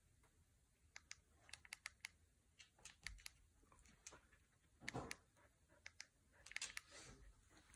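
Faint, irregular light clicks and taps from a dog moving about, its claws on a hard floor, starting about a second in, with a couple of soft rustles of fabric as it noses the blanket.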